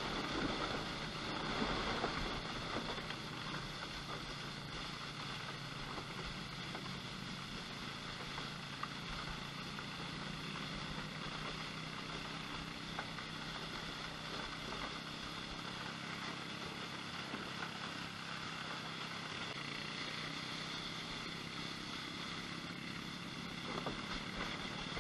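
Off-road four-wheeler's engine running at a steady, even speed, with no rise or fall in pitch.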